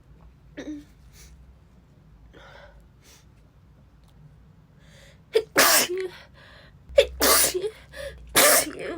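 A woman with a cold sneezing loudly three times in quick succession in the second half, the sneezes a little over a second apart.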